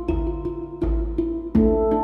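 Background music: ringing melodic notes over three deep drum beats.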